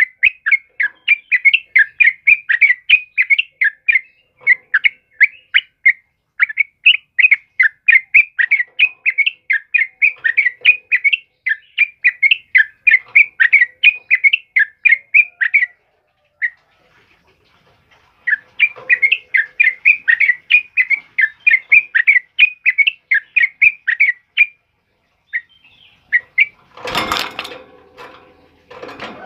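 Yellow-vented bulbul singing a fast, chattering run of short notes, about four a second, pausing briefly past halfway and then starting a second run. Near the end a short, loud noisy burst.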